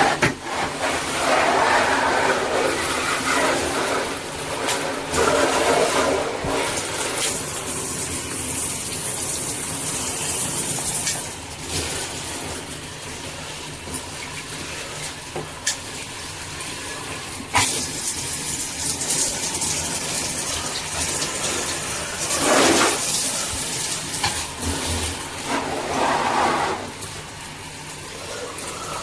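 Water spraying from a handheld shower head and splashing, a steady rushing hiss. It swells and shifts in tone several times, with a couple of sharp clicks.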